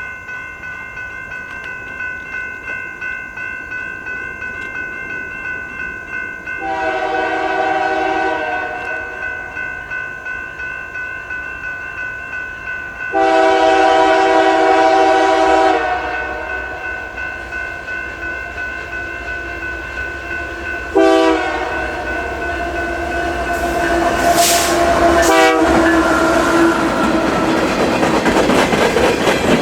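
Grade-crossing bell ringing steadily while an approaching freight locomotive sounds its multi-tone air horn in the crossing pattern: long, long, short, long. Near the end the train reaches the crossing and its wheels clack over the rails.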